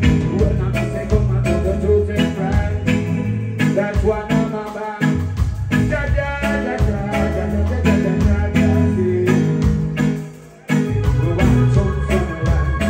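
Live roots reggae band playing a steady beat, with the singer's voice over it at times. The band cuts out for a moment about ten seconds in, then comes straight back.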